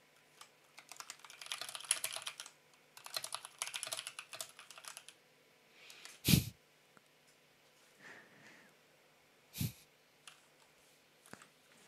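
Typing on a computer keyboard in two quick runs of keystrokes, followed by two single louder knocks a few seconds apart, the first the loudest.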